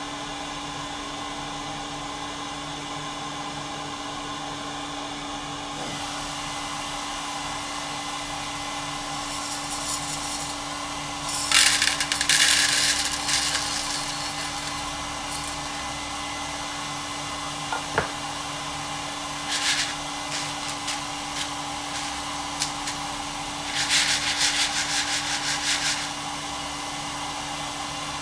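Santoker Q5 coffee roaster running with a steady hum. About twelve seconds in, freshly roasted coffee beans rattle as they are poured from the roasting chamber into a plastic cooling tray, and they rattle again for a couple of seconds near the end.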